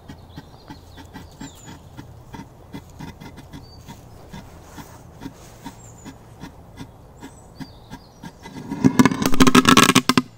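A small firework goes off near the end: a loud crackling, hissing burst that lasts about two seconds and stops abruptly. Before it there are faint, regular ticks about three times a second.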